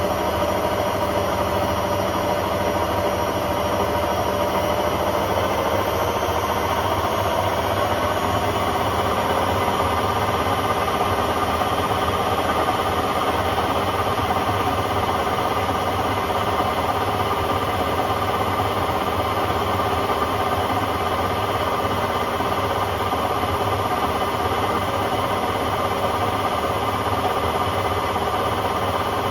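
Hotpoint Aquarius WMA50 washing machine spinning, a loud steady mechanical drone with whining tones from the drum and motor. Its pitch shifts slightly about six to eight seconds in.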